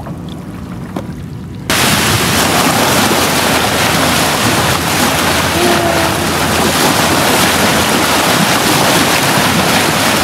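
Quiet lapping water, then from about two seconds in a loud, steady rush of wind and waves washing against the rocky shore.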